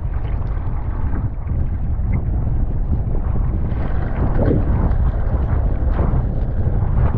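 Strong storm wind buffeting the microphone in a steady low rumble, with water rushing and splashing as breaking waves wash over a sea kayak's deck, heaviest between about four and six seconds in.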